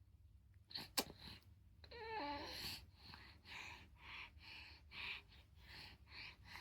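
A baby eating banana: a sharp click about a second in, a brief squealing vocalization from the baby, then a run of short breathy puffs about twice a second.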